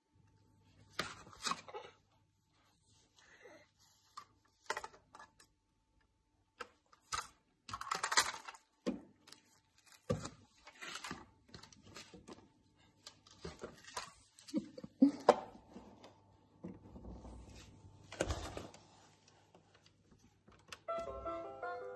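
Irregular taps, knocks and clatter of hands on a plastic toy farm and a windowsill. Near the end the toy starts playing an electronic tune.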